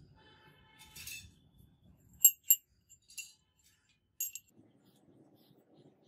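Brass butterfly-knife handle pieces clinking against each other in the hands: two quick, sharp ringing clinks about two seconds in, and another a couple of seconds later.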